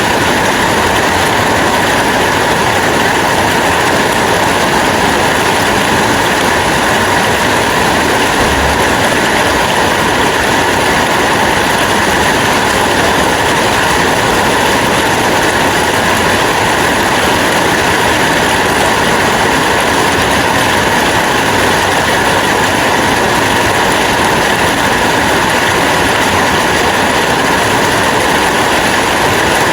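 Steady rain falling, an even, unbroken hiss that does not let up.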